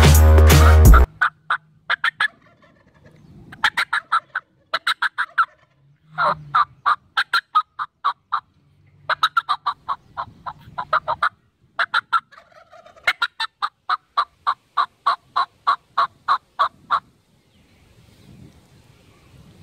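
Electronic music cuts off about a second in, followed by several Rio Grande wild turkey gobblers gobbling again and again. Each gobble is a fast rattling string of notes, and the birds sometimes overlap, with a long unbroken run of gobbling near the end.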